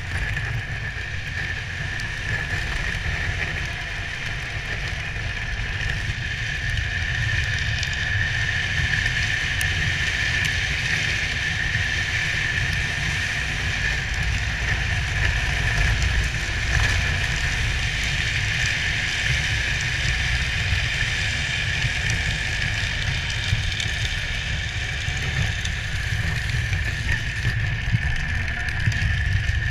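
Wind rumbling over a helmet-mounted camera on a drift trike rolling fast downhill, with the steady hiss of its wheels on the asphalt.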